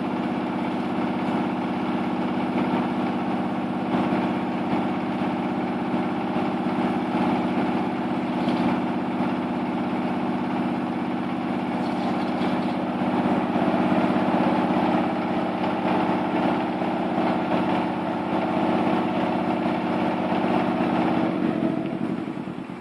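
Wood crusher machine running steadily with an even mechanical hum. Near the end it winds down, its hum dropping in pitch and fading.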